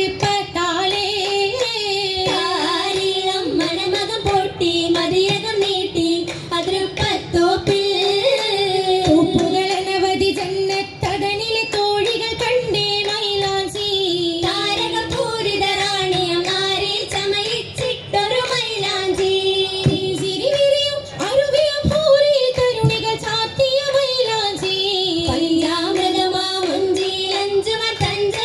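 High women's voices singing an oppana song, the Mappila wedding song-and-dance of Kerala, with rhythmic hand claps.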